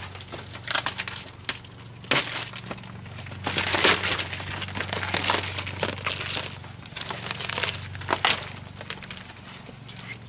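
Plastic film and cardboard packaging crinkling and crackling in irregular bursts as a car vent visor is peeled out of its wrapping. The busiest stretch comes about three to four seconds in.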